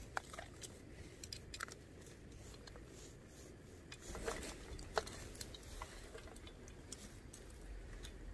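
Scattered faint clicks and light taps, irregular and a few at a time, over a low steady rumble, with the sharpest click about five seconds in.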